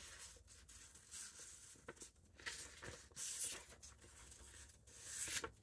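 Faint rustling of stiff book pages being turned, in several short bursts: the illustrated overlay pages of a hardcover book being flipped one after another.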